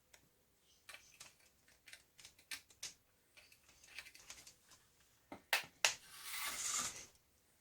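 Small clicks and taps of hands working on a laptop during a RAM upgrade, two sharper clicks about five and a half seconds in, then about a second of scraping rustle.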